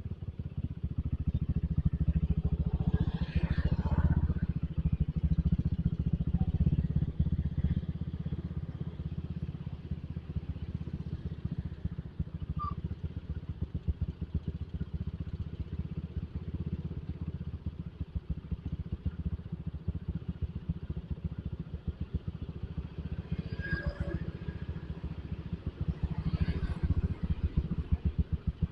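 Suzuki Satria FU motorcycle being ridden, a steady low rumble of engine and road noise, louder for a few seconds about three seconds in and again near the end.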